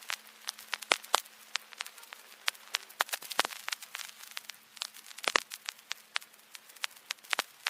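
Vinyl record surface noise: irregular crackles and pops of varying loudness over a faint hiss, with a faint steady hum underneath.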